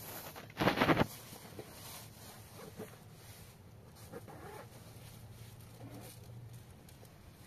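A zipper pulled quickly once, a short rasp about a second in, followed by faint handling and rustling of bags and bedding.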